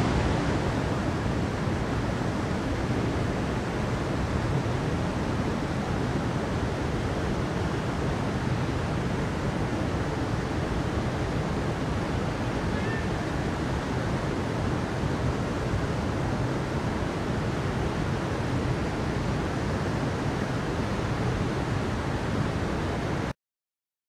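Steady rushing of a mountain stream pouring over rocks into a pool, with no changes, cutting off suddenly near the end.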